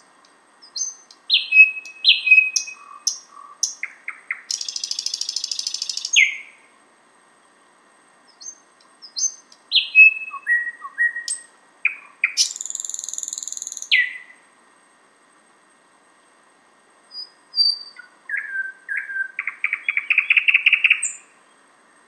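Thrush nightingale singing: three phrases a few seconds apart, each made of sharp notes and falling whistles and ending in a fast rattle of rapid pulses.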